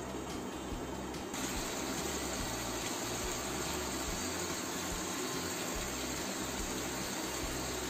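Spiced tomato-onion masala simmering in a pan on a gas stove: a steady hiss that turns louder and brighter about a second in.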